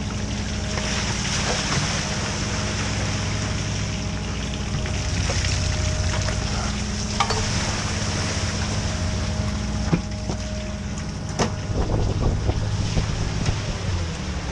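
A fishing boat's engine running steadily under a hiss of sea-water spray and wind. Several sharp knocks in the last few seconds as a crab pot is handled at the rail.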